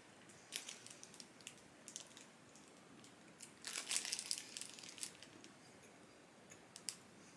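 Snack packaging being handled: faint crinkling and rustling with scattered small clicks, and a longer rustle about four seconds in.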